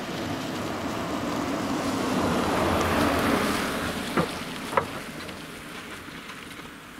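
A car passes close by and drives away, its road and engine noise swelling to a peak and then fading. A little after the loudest point come two sharp clicks about half a second apart.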